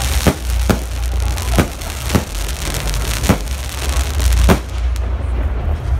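Fireworks display: aerial shells bursting with about six sharp bangs at irregular intervals, over continuous crackling and a steady low rumble.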